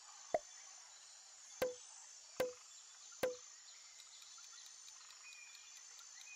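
Four short pop sound effects, each a sharp click with a brief low tone, as the next quiz question's elements appear on screen. After them, faint quick ticking of a countdown-timer effect over a steady hiss.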